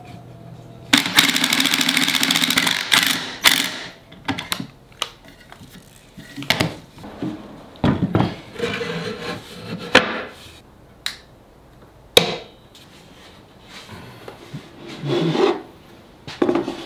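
A cordless drill drives a screw into wood for about two seconds, starting about a second in. Then come scattered wooden knocks and clunks as the assembled table is handled, and clicks near the end as bar clamps are tightened.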